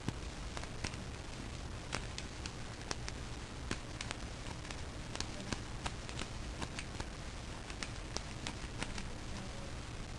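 A steel lock pick clicking and scraping against the pin stack inside a Magnum pin-tumbler padlock made by Master Lock, as it works at the two high back pins. Irregular small clicks come a few a second over a low steady hum.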